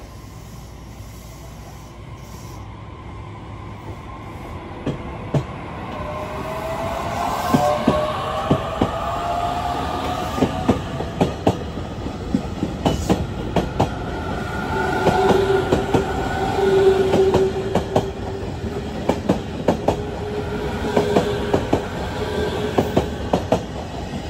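JR Kyushu 817 series electric train running past along a station platform, getting louder from about four seconds in. Its wheels clack over the rail joints in quick, uneven clicks, with drawn-out squealing tones from the wheels.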